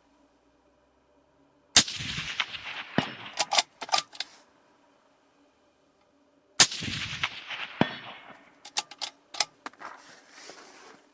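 Two rifle shots from a Tikka T3-based .260 Remington bolt-action rifle, about five seconds apart, each with a fading echo. Each shot is followed by a few sharp metallic clicks and clinks as the bolt is worked.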